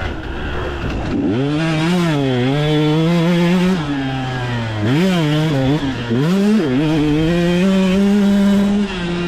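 Husqvarna 125 two-stroke motocross engine revving hard and easing off in turn, its pitch climbing and dropping again and again, with a few quick blips about five to six and a half seconds in.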